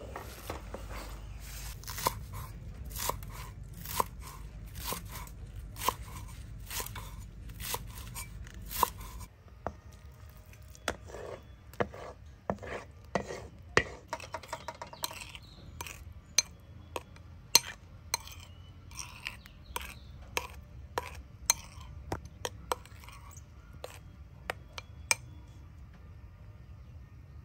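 Knife chopping food on a cutting board: a run of steady strokes, then, after an abrupt change about nine seconds in, lighter and more scattered knocks.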